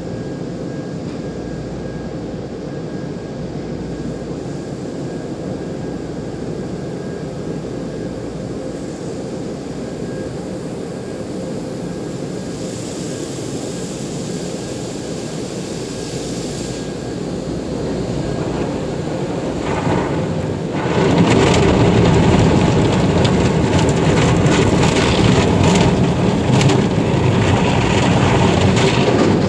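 Automatic tunnel car wash heard from inside the car's cabin: a steady rush of water spray and wash machinery with a faint hum, a brief hissing spray in the middle as foam is laid on the windshield, then from about twenty seconds in a louder scrubbing with quick slapping strokes as the wash brushes work over the car.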